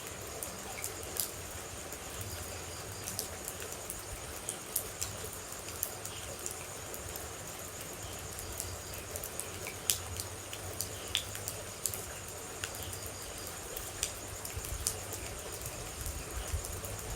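Water droplets falling in irregular, scattered drips and ticks over a steady background hiss of rain, with a constant high-pitched trill running underneath.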